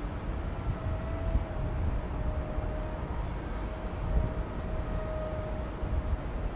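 Wind buffeting the microphone with a faint, steady whine from a distant radio-controlled model plane's motor, its pitch wavering slightly.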